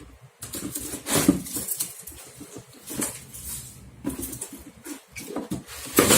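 Toy box and its packaging handled and opened by hand: irregular rustling, scraping and light knocks, loudest near the end.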